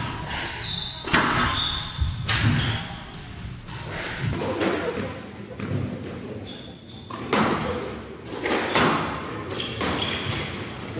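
Squash ball hit by racquets and striking the court walls during a rally, with sneakers squeaking on the court floor between the hits.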